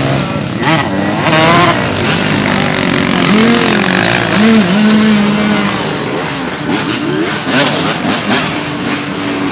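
Several motocross bikes revving hard at once, many engine notes rising and falling over one another as they are bogged in wet sand and water. One engine is held at steady revs for a couple of seconds in the middle.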